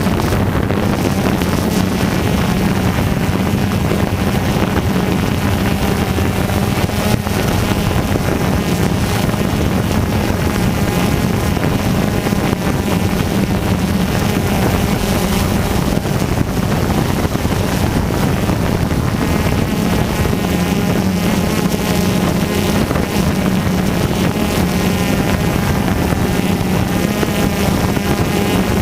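A small motor running steadily, its pitch wavering up and down, over heavy wind noise on the microphone.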